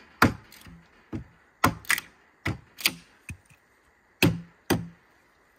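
About ten sharp, irregular strikes of a tool chopping a notch into a green, wet wooden pole.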